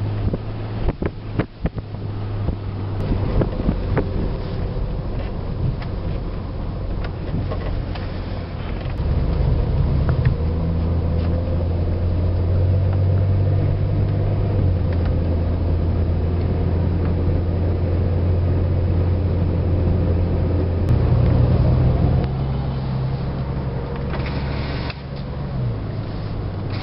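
Car engine and road noise, a steady low hum whose pitch shifts in steps several times as the engine speed changes, with a few clicks in the first seconds.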